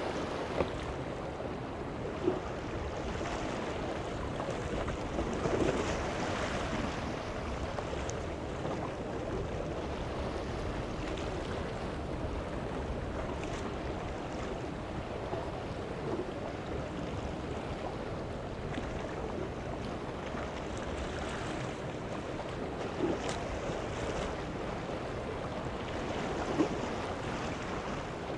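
Waves washing against the rocks and a boat's hull, with steady wind on the microphone and a few short, sharp hits.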